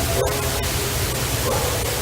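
Loud, steady hiss of a field recording. Under it are faint pitched tones: a short held tone near the start, then wavering call-like tones from about one and a half seconds in.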